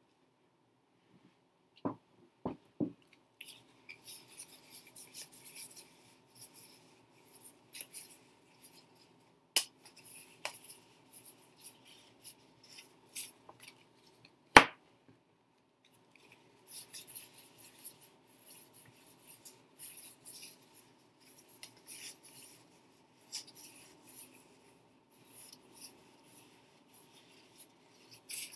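A deck of tarot cards being handled and shuffled by hand: papery sliding and rustling of the cards, broken by several sharp taps of the deck on the wooden table, the loudest about halfway through.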